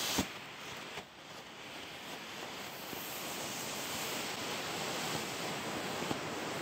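Black smoke bombs burning with a steady rushing hiss that slowly builds, with a sharp click just after the start.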